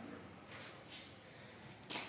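Quiet room tone with a few faint rustles and one short sharp click near the end.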